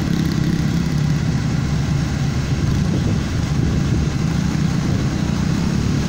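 BIMO crawler rice combine harvester running steadily, its engine and threshing machinery turning while grain is unloaded into sacks.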